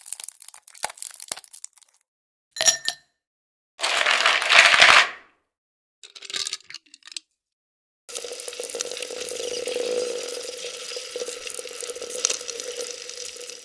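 A run of separate ice sound effects: thin crackles and cracks, a brief clink, a louder crunching burst about four seconds in, then a longer crackling passage from about eight seconds in with a faint steady tone beneath it.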